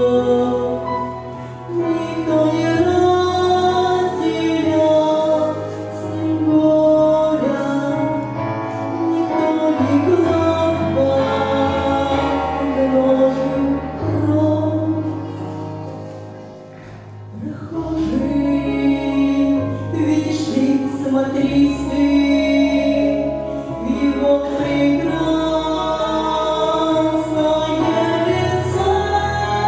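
A Russian Christian song, several voices singing a melody over accompaniment with sustained bass notes. The music eases off briefly a little past halfway, then picks up again.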